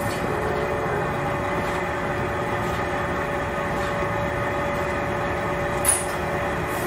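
Steady machine hum with a couple of steady tones running through it, and one short, sharp high click near the end.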